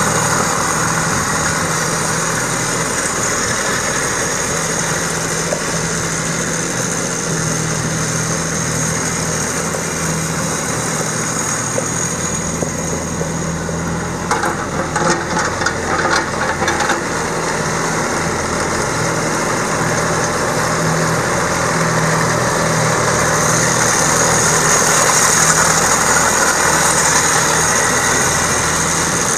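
Three-cylinder diesel engine of a Jacobsen T422D lawn tractor idling steadily, with a high whine over it. A brief clattering comes about halfway through, and the engine grows louder for several seconds in the second half.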